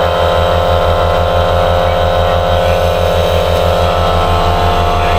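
A machine running steadily close by: a loud low hum that pulses evenly about five times a second, with steady higher tones over it.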